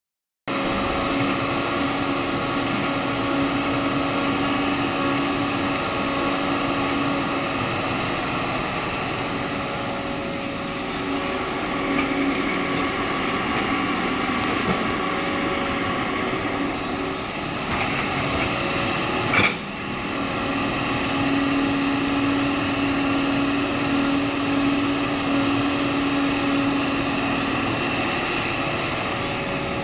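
Hitachi hydraulic crawler excavator running steadily as it digs soil and swings to load a dump truck, its engine hum holding a few steady tones that come and go as it works. A single sharp knock about two-thirds of the way through.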